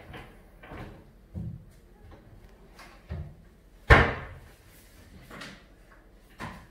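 MDF kitchen wall-cabinet doors being opened and swung shut by hand, giving a string of soft knocks. The loudest is a sharp shutting knock about four seconds in, with a short ring after it.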